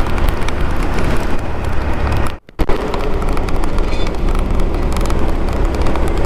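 Wind rushing over the microphone of a moving motorcycle in traffic, with road and engine noise underneath. The sound drops out for a moment about two and a half seconds in, then resumes.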